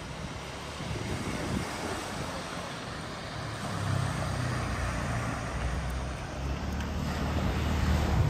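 Wind buffeting the microphone in gusts over the wash of sea waves on the rocky shore. The low rumble of the wind grows stronger near the end.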